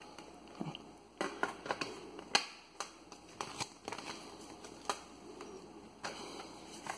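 Irregular light clicks and taps of Blu-ray discs and a steelbook's clear plastic disc tray being handled, with one sharper click about two and a half seconds in.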